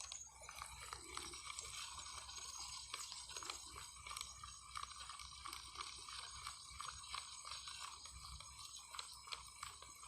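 Faint, irregular small clicks and crackles, like tackle or a fish being handled, over a steady chorus of insects.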